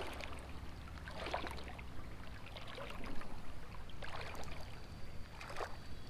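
A small spinning reel being cranked to retrieve a light jig, over a steady low rumble and the faint run of a shallow creek, with a few brief soft rustles about a second and a half in, near the middle and near the end.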